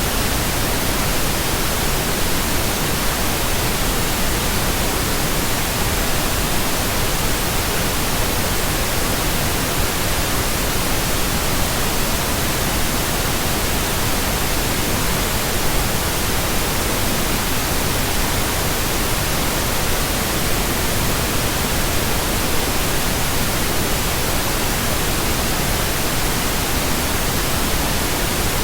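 Steady synthetic pink noise: an even, unchanging hiss with no tones or other sounds in it.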